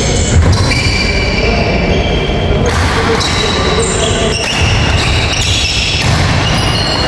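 Badminton doubles rally in an echoing hall: racket strikes on the shuttlecock and footfalls on the wooden court, under steady background music.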